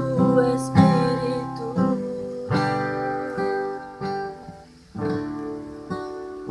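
Acoustic guitar strumming slow chords at the end of a worship song, each chord struck about once a second and left to ring and fade.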